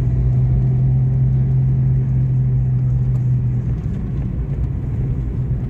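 A car's engine and tyre rumble heard from inside the cabin while driving, a steady low drone that eases off a little about two-thirds of the way through.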